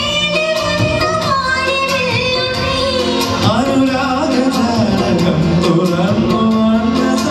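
Indian film song played for a stage dance: a voice singing a gliding melody over a quick, even percussion beat of about four strokes a second.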